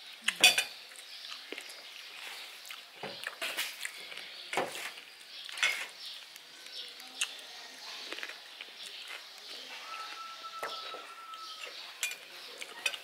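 Scattered clinks and taps of spoons against china plates and bowls, with the small sounds of food being torn and handled, during a meal eaten mostly by hand. The loudest clatter comes about half a second in.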